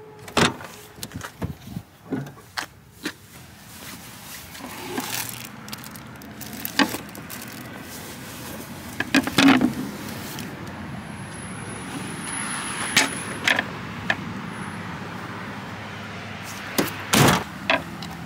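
Van rear door latch clicking open about half a second in, followed by scattered knocks and clunks of things being handled and moved, with a cluster of louder knocks near the end.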